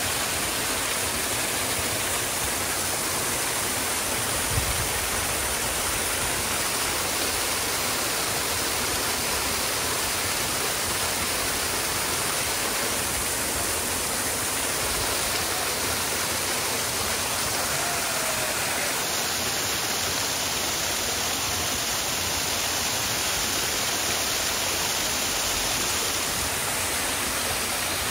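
Steady, even rushing of water.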